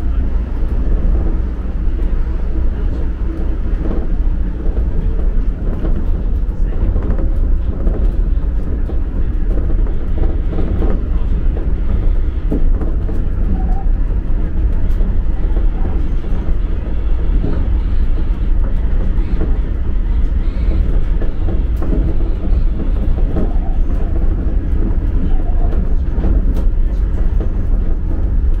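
Rubber-tyred suspended monorail car of the Shonan Monorail running along its track, heard from inside the front cab: a steady low rumble of running gear and motors, with a few light knocks.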